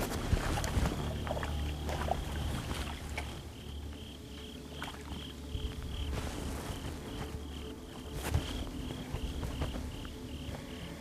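An insect chirping in a steady run of short high pulses, about two and a half a second, over a low rumble, with a few scattered clicks.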